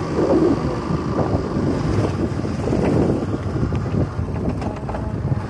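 Wind buffeting the microphone on a moving motorcycle, a rough, gusty rumble, with the bike's engine running underneath.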